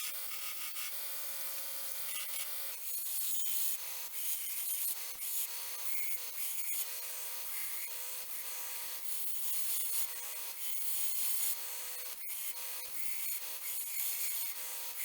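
Belt grinder with a coarse 36-grit belt grinding a sword guard to profile: a steady abrasive hiss with a faint running tone, its texture changing about three seconds in.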